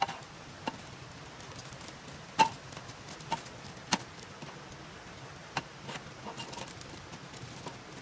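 Scattered light clicks and clinks, about eight in all, from a metal luncheon-meat tin and a kitchen knife being handled and set down on a hard table. The loudest comes about two and a half seconds in, and a faint steady hiss runs underneath.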